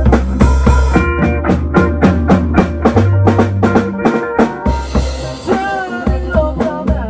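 Music with a steady drum-kit beat, bass and pitched melody; the bass drops out briefly about four seconds in.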